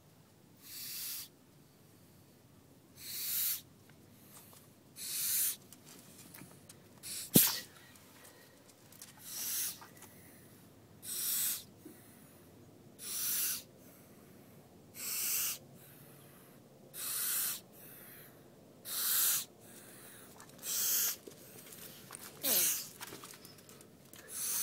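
Gopher snake hissing defensively, a loud rasping hiss with each exhalation, about once every two seconds: its imitation of a rattlesnake's warning. About seven seconds in there is one sharp knock, the loudest sound.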